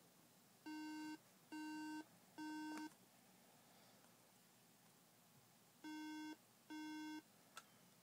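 MacBook Pro alarm beeping at startup: three half-second beeps, a pause of about three seconds, then two more beeps before it stops. Groups of three repeating beeps are the Mac's diagnostic code for a hardware fault, typically memory failing its startup check.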